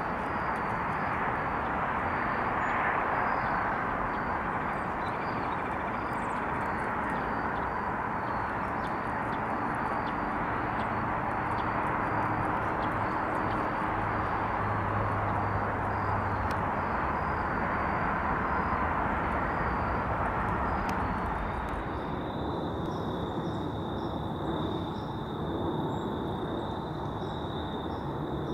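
Jet airliner passing overhead, a steady rushing roar that eases about 22 seconds in. As it eases, a thin steady high tone comes in.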